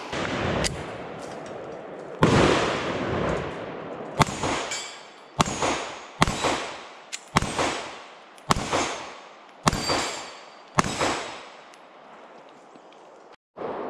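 Semi-automatic pistol fired at a steady slow pace, about nine shots, most of them about a second apart, each trailing a long echo, with steel targets clanging.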